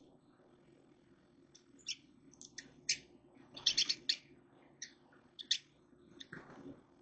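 Small birds chirping: short, sharp chirps scattered through, with a quick run of about four notes around three and a half seconds in, over a faint steady low hum.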